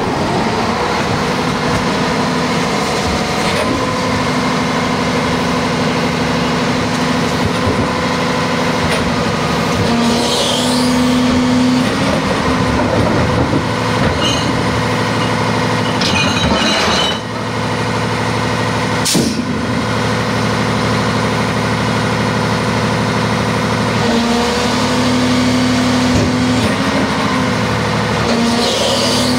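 Diesel engine of a Peterbilt 320 refuse truck running steadily, speeding up twice for a few seconds, about ten and about twenty-four seconds in. Short air hisses come near those moments, and there is a single sharp bang a little before twenty seconds in.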